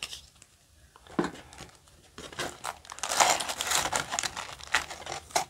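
Foil Yu-Gi-Oh! booster pack wrappers crinkling as they are handled and pulled from the booster box, starting about two seconds in after a light tap.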